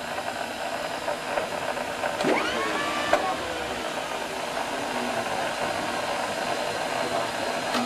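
Steady whirring hum and hiss of running vintage military aircraft radio equipment, the dynamotor power supplies of the transmitters. A brief whistle-like tone rises and falls about two seconds in.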